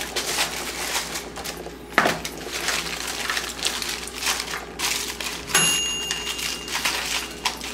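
Aluminium foil crinkling and crackling as hands press and crimp it around pork ribs in a metal baking pan, with a sharp knock about two seconds in as the foil parcel is set into the pan. A high electronic beep sounds for about a second near the end.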